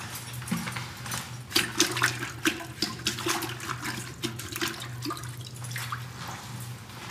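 Water splashing and sloshing in a toilet bowl as a long-handled squeegee is dipped and swished in it, in irregular bursts for a few seconds, over a steady low hum.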